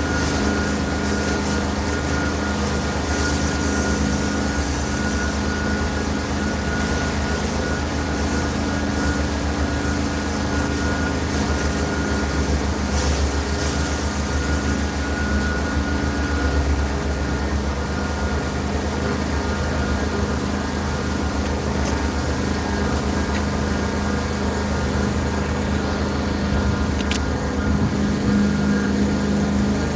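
Carpet-cleaning extraction equipment running steadily while chairs are cleaned: a low motor drone with a constant hum and a thin high whine.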